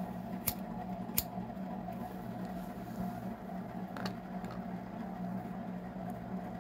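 Wooden clothespins on a wreath frame being handled, giving a few sharp light clicks: two in the first second or so and one about four seconds in. A steady low hum runs underneath.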